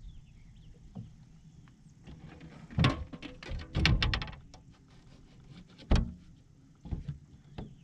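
Irregular knocks and thumps on the boat as a freshly caught crappie and the measuring board are handled. A rapid cluster of knocks comes about three to four seconds in, then single sharp knocks near six and seven seconds.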